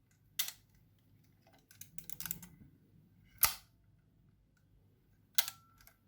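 Canon Canonet 28 rangefinder being worked by hand: the shutter fires with sharp clicks three times, with a run of smaller mechanical clicks about two seconds in. The shutter is still working.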